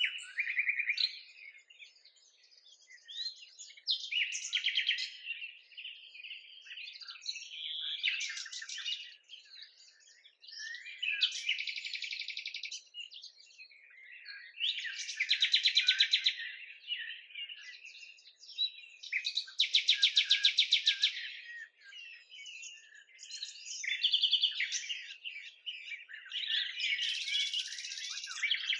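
Songbirds singing: steady chirping, broken every three to four seconds by a louder, rapid trill lasting a second or two.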